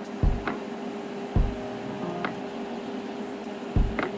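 Welding arc running with a steady hum and hiss, broken by three dull low thumps.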